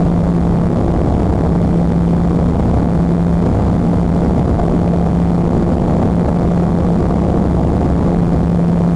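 Cabin noise of a propeller airliner climbing after takeoff: the engines and propellers make a loud, steady drone with a steady low hum running through it.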